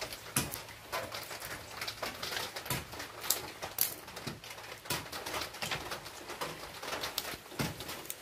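Dry cinnamon bark quills being handled and fitted together by hand on a concrete floor: a quick, irregular run of small crackles, clicks and light taps.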